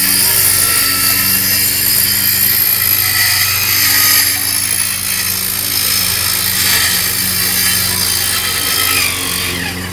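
Handheld electric circular saw running steadily as it cuts along a wooden board.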